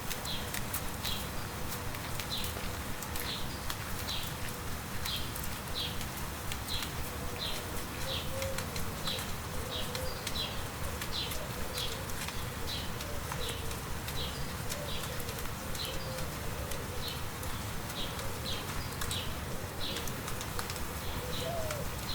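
Light steady rain with scattered raindrop ticks, over which a bird repeats a short high note about once or twice a second. Fainter lower warbling calls come in now and then and grow more noticeable near the end.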